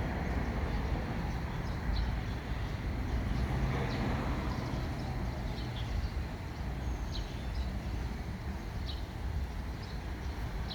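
Small concrete mixer running steadily with a low rumble, with short high bird chirps every second or two.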